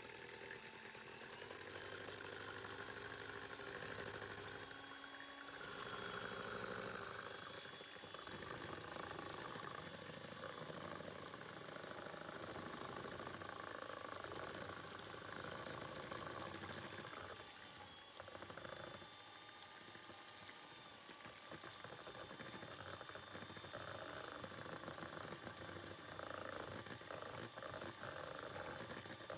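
Electric hand mixer running steadily, its beaters whisking eggs and butter in a stainless steel bowl into cake batter. The motor dips slightly in loudness about two thirds of the way through.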